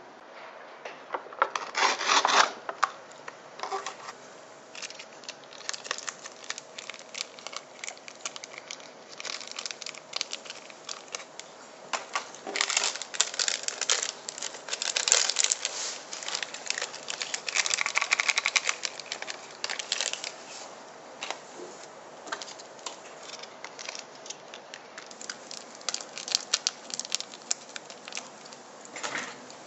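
Plastic seasoning sachets for a cup of instant noodles being torn open and squeezed out, with crinkling and tearing in bunches of crackles, heaviest in the middle.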